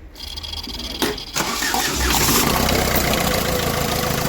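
Ford Figo's diesel engine cranked by the starter motor, catching about a second and a half in and then running steadily.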